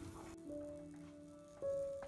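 Soft instrumental background music: slow held notes, with a new note coming in about half a second in and a louder one near the end.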